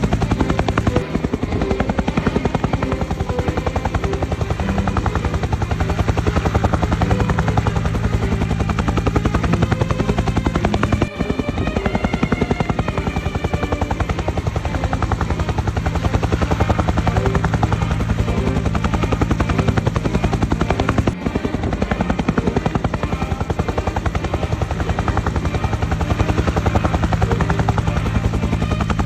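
Helicopter rotor blades chopping steadily, with three brief dropouts about ten seconds apart.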